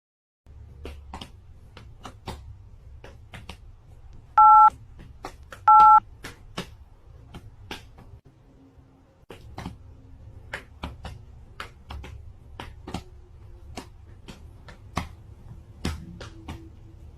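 Two loud telephone keypad tones (DTMF, two pitches at once) about a second and a half apart, among many sharp clicks at irregular intervals, two or three a second, over a steady low hum.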